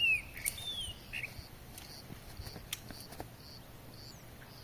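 Birds chirping outdoors: a few short chirps in the first second, over a high note that repeats at an even pace, about one and a half times a second.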